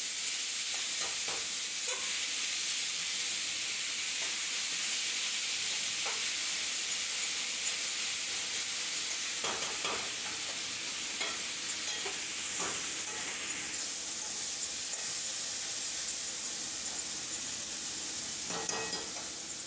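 Food frying in a hot pan: a steady sizzle of spitting oil, with occasional clicks and brief scrapes of a utensil stirring in the pan.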